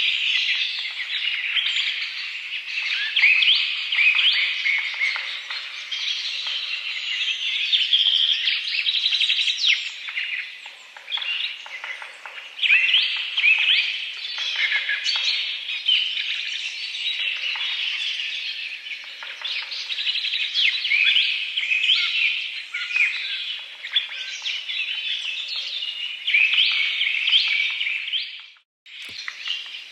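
A dense chorus of many small birds chirping and twittering at once, in quick overlapping calls. The sound cuts out suddenly for a moment about a second before the end.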